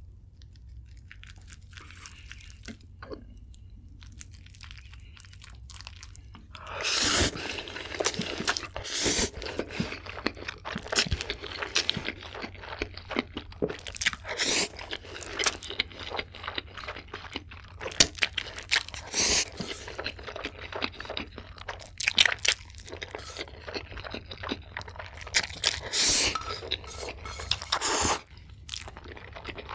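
Close-miked eating sounds of a person eating saucy instant noodles. At first there are faint soft, sticky sounds of chopsticks working the noodles. From about seven seconds in come loud, irregular bursts of slurping and wet chewing with crunchy clicks.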